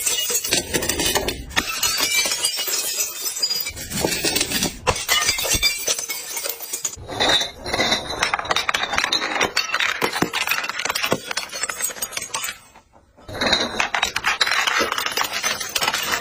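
Glass bottles clinking, cracking and breaking in a dense run of sharp crunching impacts. The sound stops for about half a second about three quarters of the way through, then resumes.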